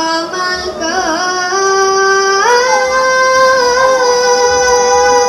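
A boy singing a drawn-out nasyid phrase with no accompaniment. A few wavering, ornamented notes give way about two and a half seconds in to one long high note, held to the end.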